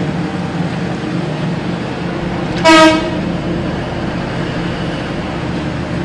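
Heavy diesel mining machinery running with a steady drone as a hydraulic mining shovel loads a Caterpillar haul truck, with one short, loud horn blast a little under halfway through.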